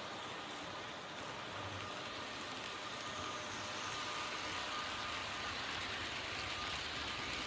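Model passenger train running along the track: a steady rushing noise from its wheels and motor that grows louder about three seconds in as it passes close by.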